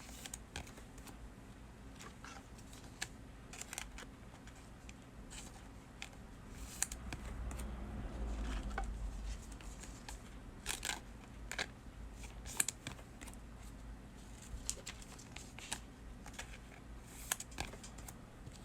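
Trading cards and plastic card sleeves being handled: scattered light clicks and taps with soft rustling.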